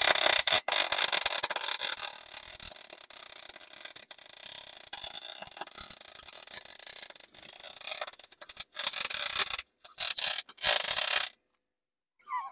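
Wire-feed welder arc crackling and sputtering as a bead is laid on a truck's winch plate. It runs loud for a couple of seconds, then quieter, then comes in three short bursts near the end.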